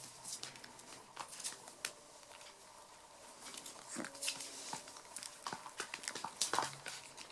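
Six-week-old puppies moving about on a tile floor while being petted: scattered soft clicks and taps, with a brief faint whine about four seconds in and a short low vocal sound near the end.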